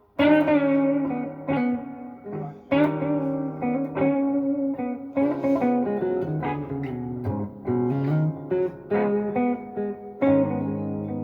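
Gibson SG Special electric guitar on its neck pickup, played through a Fender Blues Junior IV amp: a slow blues in A minor, tuned down to E-flat. Picked single notes and short phrases ring out, some with string bends, over held lower notes.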